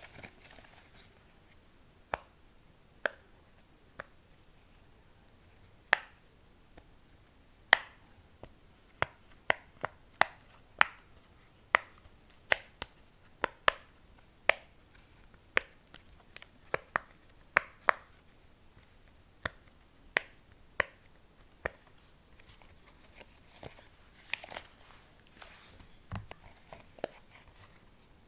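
A fidget toy clicked by hand over and over: irregular sharp clicks, about one or two a second, coming thicker in the middle, then softer crackling handling sounds near the end.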